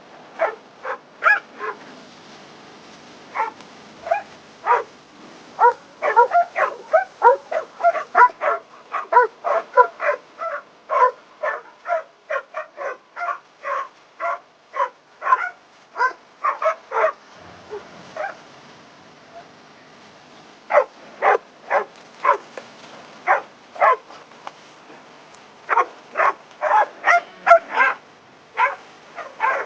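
Dog barking and yipping in quick runs of short, sharp barks, broken by a few brief pauses.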